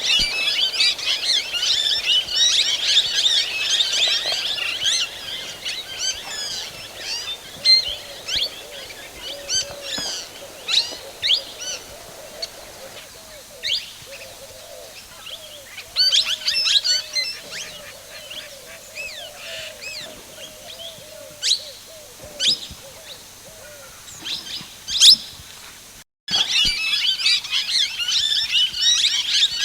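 A chorus of many birds chirping and calling, dense and overlapping at first, then thinning to scattered single chirps over a lower run of repeated calls. The sound cuts out for a moment near the end, and then the dense chorus resumes.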